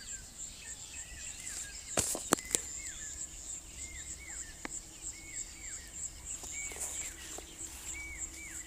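Crickets trilling, a steady, rapidly pulsing high buzz, while a bird repeats short whistled notes that fall in pitch, often in pairs. A few sharp clicks about two seconds in.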